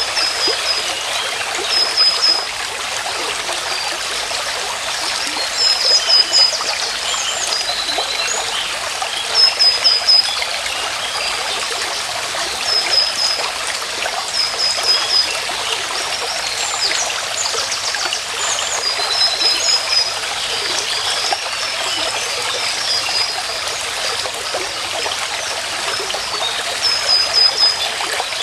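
A stream running steadily, with a bird repeating a short, high phrase of a few quick notes every few seconds.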